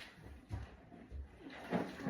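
A few low thuds and knocks, irregularly spaced, with a louder knock near the end.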